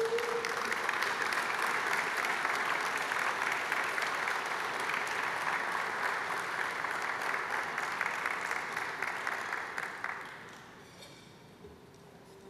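Audience applauding, a dense patter of many hands clapping that dies away about ten seconds in.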